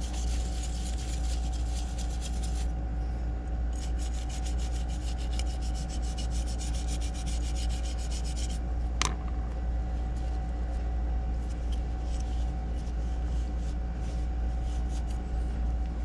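Small brush scrubbed rapidly back and forth over a metal plate, a continuous rasping scrub, with a brief click about nine seconds in. A steady low hum runs underneath.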